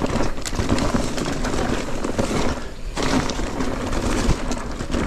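Mountain bike riding a dry, loose dirt trail: the tyres rolling over dirt and rocks and the bike rattling with frequent sharp knocks, easing off briefly just before 3 seconds in.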